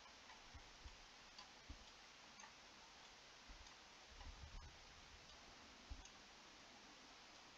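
Near silence: faint microphone hiss with a few faint, short knocks scattered through it.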